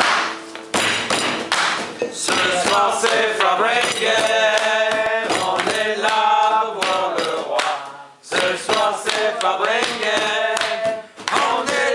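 A group of men singing a festive song together and clapping along, with a brief break about two-thirds of the way through.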